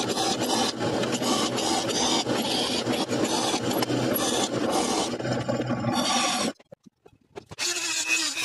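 Drill press running, its bit cutting into a steel blank from an old chisel plow: a steady grinding scrape over the motor's hum. It cuts off about six and a half seconds in. After a second of quiet, a different motor starts near the end.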